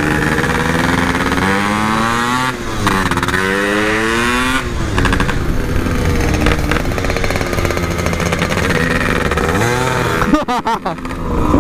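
Yamaha RX-King two-stroke single-cylinder motorcycle engine pulling through the gears. Its pitch climbs, drops at a gear change about two and a half seconds in, climbs again, then holds fairly steady, with a few quick blips of the throttle near the end.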